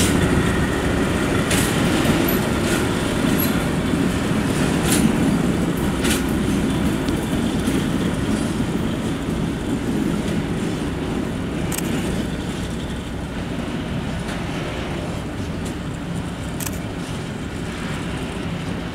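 SM42 diesel shunting locomotive running as it hauls a short string of open freight wagons away, its engine sound slowly fading. A few sharp clicks from the wheels and wagons on the track come through it.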